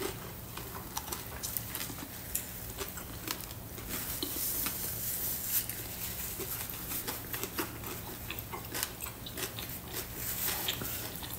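Someone biting into and chewing a shrimp taco in a fried corn tortilla: irregular small crunches and mouth clicks, over a faint steady low hum.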